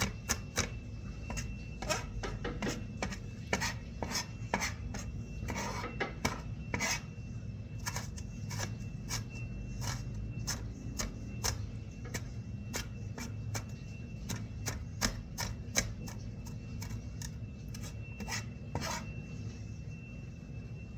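Kitchen knife chopping red pepper on a cutting board: quick, irregular taps, a few a second, that stop near the end.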